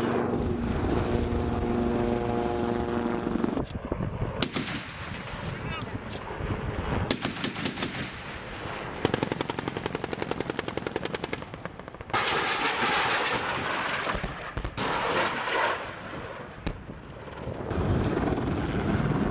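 AH-1Z Viper attack helicopter weapons firing: bursts of rapid gunfire, one even run at about ten shots a second, then a loud rushing blast about twelve seconds in. Helicopter rotor noise returns near the end.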